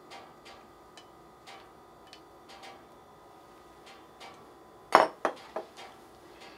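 Wooden chopsticks scraping and tapping against a ceramic bowl in light, scattered clicks, then a quick run of three or four louder ringing clinks about five seconds in.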